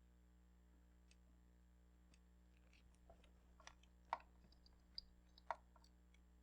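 Faint metal clicks and taps of an open-ended wrench being worked on a stubborn, hard-to-reach bolt in the engine bay. They start about halfway through, and the two loudest, sharpest clicks come about four and five and a half seconds in.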